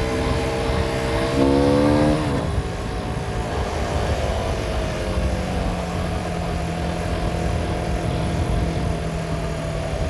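Aprilia SX125 supermoto's 125 cc single-cylinder four-stroke engine running while riding. About a second and a half in, the revs climb sharply, then drop away just past two seconds, and the engine settles to a steady note that sinks slowly.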